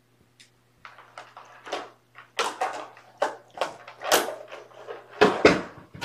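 An irregular run of short rustling and knocking noises, with two louder thumps about five seconds in and a low steady hum underneath.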